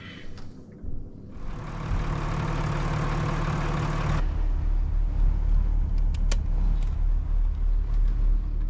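Trawler's diesel engine starting: a few seconds of loud cranking with a hiss, cut off sharply as the engine catches. It then runs at a steady low idle, with a couple of light clicks.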